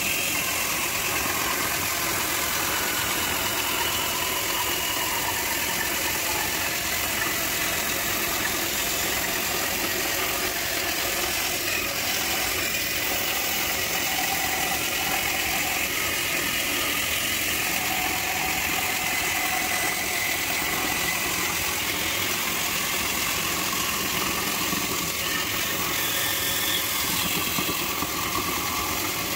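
Band saw running steadily, its blade cutting a curve through a thick block of wood.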